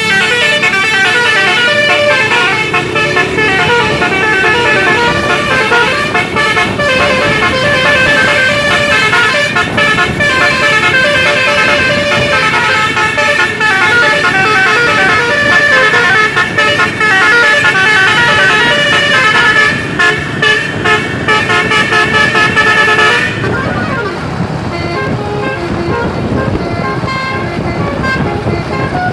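Bus Basuri telolet air horns playing a loud, continuous run of multi-tone melodic toots, with no pause between phrases; about 23 seconds in the horns drop away and only fainter tones remain.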